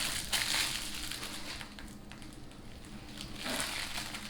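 Thin plastic protective film crinkling and rustling as it is handled: a rustle at the start and another near the end.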